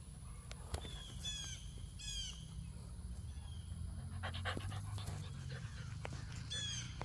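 A bird calling three times, each call a quick run of high whistled notes that fall in pitch, over a steady low rumble of wind or handling noise, with a dog's panting among the yard sounds.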